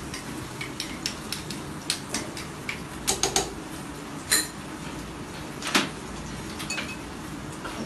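Cooking utensils clicking and scraping against a frying pan as sautéing onions and chopped garlic are stirred: scattered light clicks, a quick cluster of sharper knocks about three seconds in, and single louder knocks a little after four and near six seconds.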